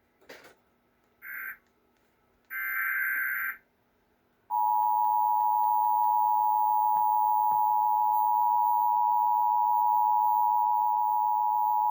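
Emergency Alert System broadcast tones: two short buzzy data bursts of the SAME alert header, then, about four and a half seconds in, the loud, steady two-tone EAS attention signal begins and holds.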